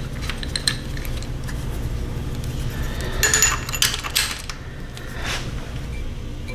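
Light metallic clinks and ticks of a small wrench and hardware working on a carburetor's throttle cable bracket, a quick cluster of them about three to four and a half seconds in, over a steady low hum.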